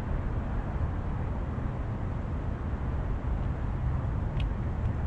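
Steady low rumbling noise with no clear rhythm or pitch, and a brief faint high sound near the end.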